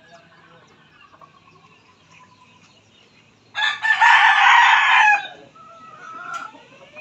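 A rooster crows once about halfway through: a loud crow lasting about a second and a half. Faint clucking and calls from other chickens come before and after it.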